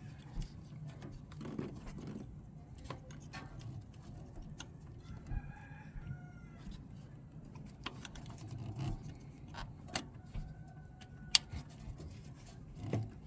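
A rooster crowing in the background a few seconds in, over scattered clicks and knocks of car parts and clips being handled, with one sharper click near the end.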